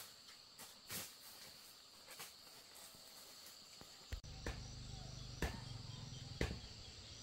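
Steady high buzzing of insects in the forest, with a few footsteps on a dirt path in the first seconds. After about four seconds a low hum comes in, with soft thumps about once a second.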